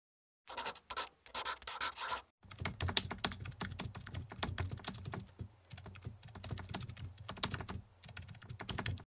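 Computer keyboard typing sound effect: a fast, uneven run of key clicks, with a short break a little after two seconds in.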